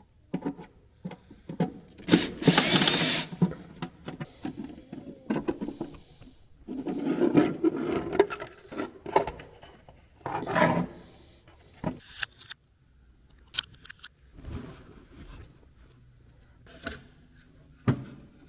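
Cordless drill-driver running in short bursts, the loudest about two seconds in, among scattered clicks, knocks and rattles of parts and panels being handled.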